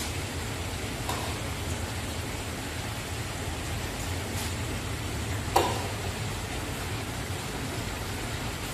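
A huge kazan of meat-and-carrot broth boiling hard over its fire, a steady rushing hiss. A metal skimmer clinks sharply against the pot once a little past halfway, with fainter taps about a second in and around four seconds in.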